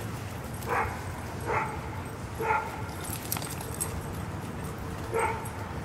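A dog making short, pitched calls during play, four of them spread out a second or more apart.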